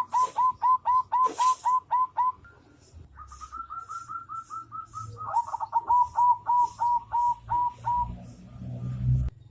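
Bird calling in rapid runs of short repeated notes, about five a second, with a brief pause and a slightly higher-pitched run in the middle.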